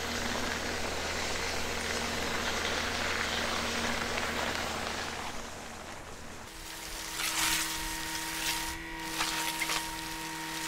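Skid-steer loader's engine running while a grain-bag roller winds in an empty plastic grain bag. The sound changes abruptly about six and a half seconds in, to a steadier engine tone with short bursts of rustling.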